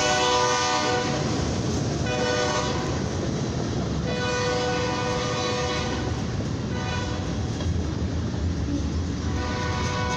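Freight train locomotive horn sounding for a grade crossing in separate blasts: a long one ending about a second in, a short one about two seconds in, a longer one from about four to six and a half seconds, and a fainter one near the end. Under it runs the steady rumble of the passing freight train.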